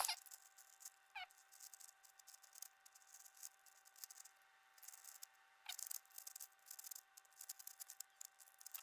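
Plastic 5x5 Rubik's cube being turned quickly by hand: a fast stream of faint clicks and rattles from its layers, with short pauses, over a faint steady hum.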